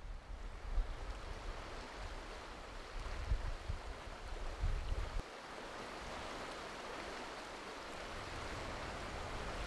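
Copper River current rushing steadily past the bank. Wind rumbles on the microphone through the first five seconds, then cuts off.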